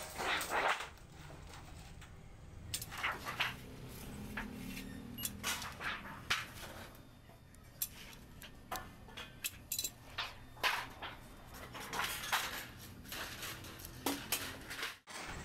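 Hand shears cutting thin mirror-polished sheet metal: irregular sharp snips and metallic clinks, with the sheet flexing and rattling. Near the end, cut metal panels clink as they are laid on a stack.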